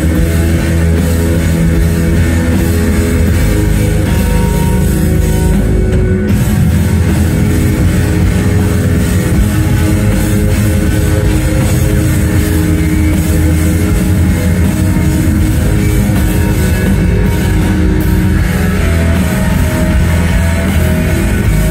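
Instrumental post-rock band playing live: several electric guitars and a drum kit, loud, dense and steady, with held guitar tones.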